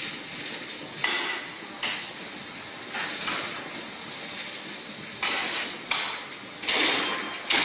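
Turntable pallet stretch-wrapping machine running as it wraps a load in stretch film: a steady mechanical hum with irregular sharp clacks and short crackling bursts, which come more often in the last few seconds.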